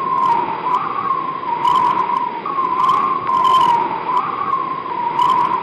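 Wind blowing: a steady gusting hiss with a whistling tone that wavers up and down in pitch.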